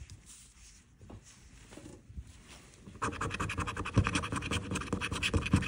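A coin scratching the coating off a paper scratch-off lottery ticket in rapid back-and-forth strokes. The scratching starts about three seconds in, after a few seconds of faint handling.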